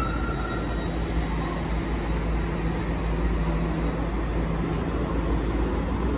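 TEXRail Stadler FLIRT diesel multiple unit moving slowly along the platform, its engines giving a steady low rumble and hum. A steady high beep stops about half a second in.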